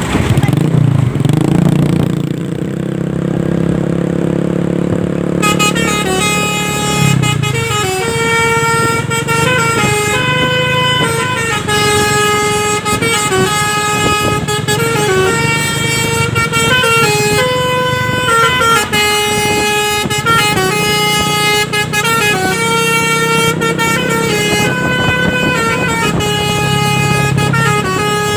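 Truck's telolet basuri multi-tone air horn playing a melody note by note, starting about five seconds in, over the low running of a truck engine.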